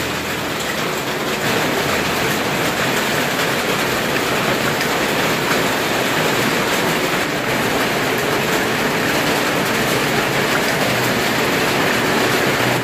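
Rain falling steadily, a dense even hiss that grows a little louder about a second and a half in.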